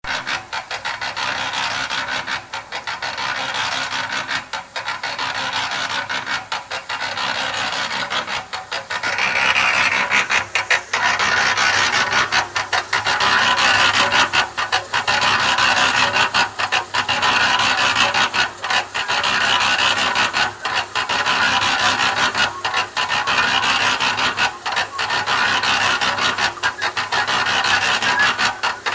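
Concrete mixer drum turning, its load of wet mix churning and rasping inside in an even, repeating rhythm; it grows louder about nine seconds in. A mason is whistling along.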